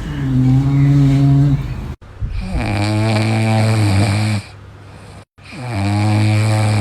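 A dog snoring: three long snores, each holding a steady low pitch for about one and a half to two seconds, with abrupt breaks between them.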